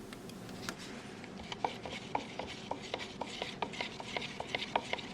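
A quick run of light, sharp clicks and scrapes, about four or five a second, starting about a second and a half in.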